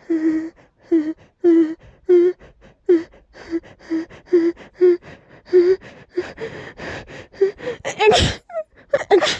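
A person's short, pitched gasping catches, about two a second, as a sneeze builds and will not come: a stuck sneeze. The sneeze finally bursts out loudly about eight seconds in, with a smaller burst just after.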